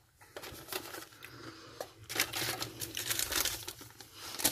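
Plastic MRE ration pouches being handled, with irregular crinkling and rustling.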